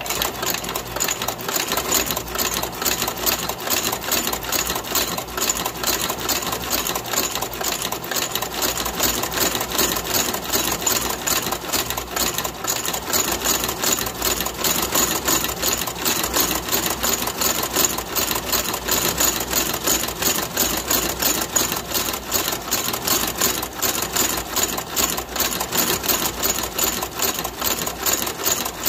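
Lockstitch outsole stitching machine running steadily, sewing a rubber sole to a boot's welt with a rapid, even clatter of stitches.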